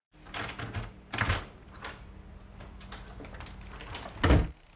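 A door opening and a paper grocery bag rustling as someone comes in, with a few knocks, then a loud thump near the end as the door shuts. A faint steady hum sits underneath.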